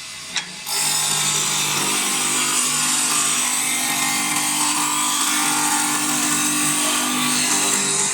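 Automatic woodturning lathe cutting a wood spindle: a loud, steady hiss of the cutter shaving the spinning wood over a steady motor hum, starting about a second in after a single click.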